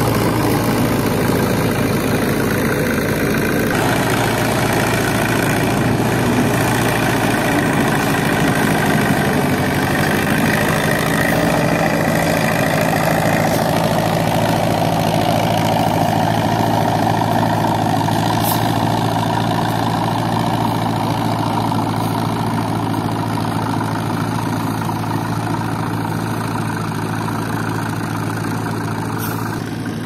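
Diesel engines of a farm tractor and a road roller running steadily. The sound shifts in character a couple of times, about 4 and 13 seconds in.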